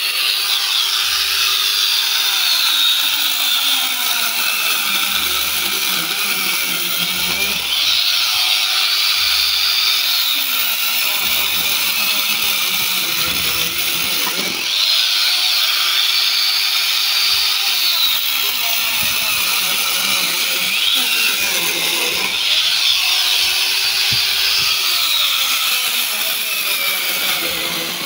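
A corded electric chainsaw runs continuously, cutting through a strapped bundle of cassava stems. Its motor pitch sags and recovers about four times over the cuts.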